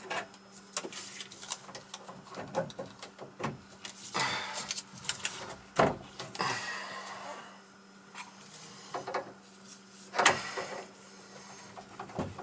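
Copper pipe and a slip coupling being worked into place by hand: irregular scraping and rubbing of metal on metal with light clicks, and a couple of sharper knocks about 6 and 10 seconds in.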